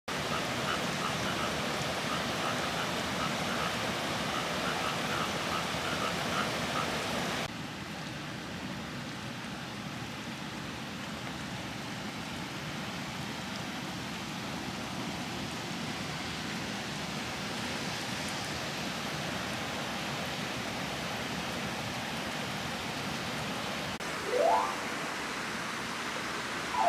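Steady rain, with frogs calling in a regular pulsing chorus over it for the first seven seconds or so. Then the rain goes on alone, more quietly, and a short rising whine comes near the end.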